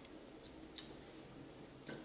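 Near silence: quiet room tone with a few faint, short ticks.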